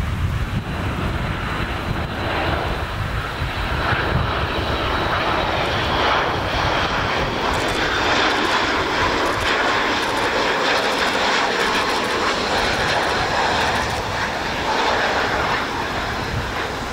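BAe Avro RJ100 four-engined regional jet on final approach, its Honeywell LF507 turbofans giving a steady jet noise, with a thin high whine in the first few seconds.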